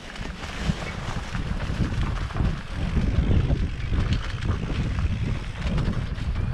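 Wind rumbling on the microphone of a mountain biker's camera while riding a dirt trail, with scattered knocks and rattles from the bike. It grows louder about two to three seconds in as speed picks up.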